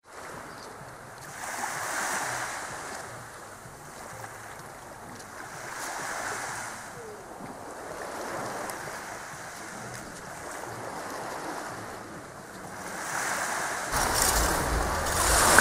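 Small sea waves washing in on the shore, swelling and fading about every four seconds. About fourteen seconds in, wind starts buffeting the microphone and the sound gets louder.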